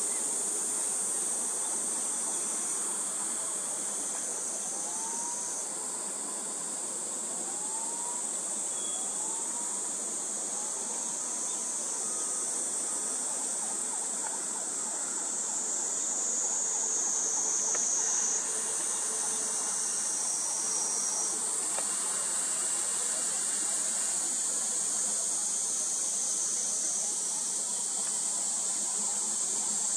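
A loud, steady high-pitched chorus of cicadas buzzing, its pitch stepping up or down a few times. Between about four and eleven seconds in, a bird gives four faint upswept calls.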